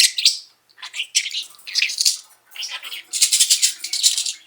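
Pet budgerigar chattering: a fast, high-pitched warble of chirps and mimicked talking. It comes in short bursts with gaps at first, then runs on almost without a break from about three seconds in.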